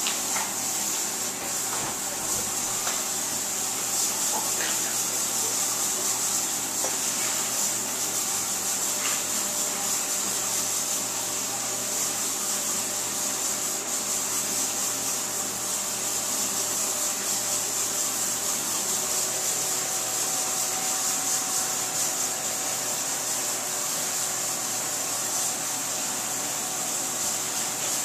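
Axe body spray aerosol can hissing in one long, steady spray, held down without a break while it is sprayed over the body.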